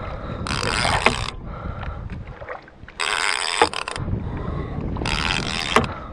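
Fishing reel cranked in three short bursts of whirring as a hooked tuna is wound in, over a low steady rumble of wind and boat.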